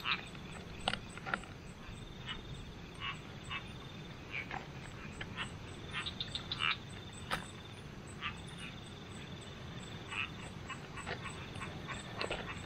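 Night chorus of frogs: repeated short croaks and buzzy trilling calls. A few sharp clicks come from the plastic basket traps being handled.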